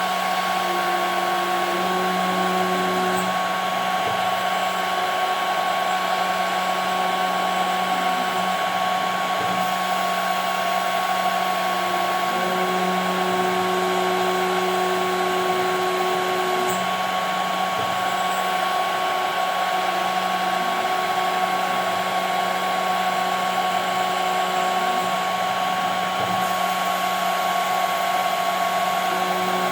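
CNC router spindle running with a steady whine as it cuts 5 mm plexiglass, over a constant hiss. A fainter, lower tone starts and stops every few seconds as the machine moves along its path.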